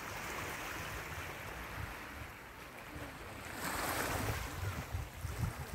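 Wind gusting, rumbling on the microphone, with a rushing hiss that swells louder about four seconds in.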